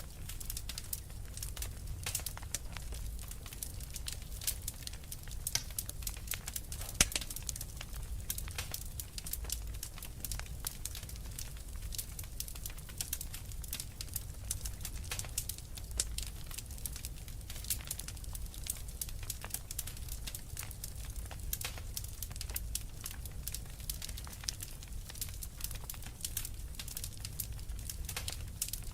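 Wood fire crackling in a fireplace: a dense, irregular run of small sharp pops over a low steady rumble, with one louder pop about seven seconds in.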